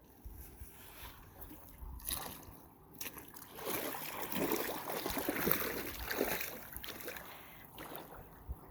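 Water splashing and sloshing against a small fishing boat, with a few light knocks, and a louder rush of splashing in the middle that dies down near the end.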